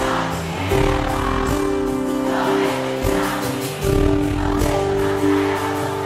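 Live sertanejo band music: held keyboard chords changing every second or so over a bass line, with singing.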